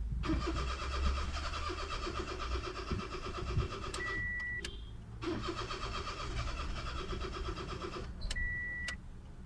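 Toyota Vitz engine cranking on the starter in two attempts of about four and three seconds, sounding as if it is about to fire but never starting. The mechanic puts this down to a faulty camshaft position sensor (code P0340) letting the engine flood. A short, steady high beep follows each attempt.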